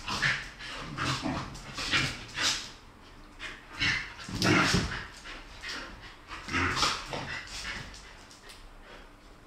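Two dogs play-fighting, making a quick run of short growls and whines, loudest about halfway through and dying away near the end.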